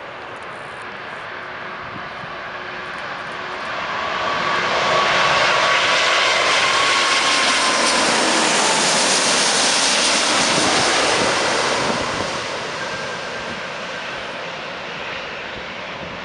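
Airbus A340-600's four Rolls-Royce Trent 500 turbofans passing low overhead on final approach: the jet noise swells over a few seconds, holds loud for about seven seconds, then fades as the airliner moves away. A faint whine drops a little in pitch as it passes overhead.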